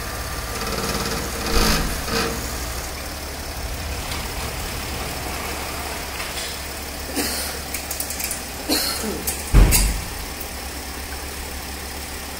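Mercedes ML 350 CDI's V6 diesel engine idling steadily, with a few short clicks and one louder thump about ten seconds in.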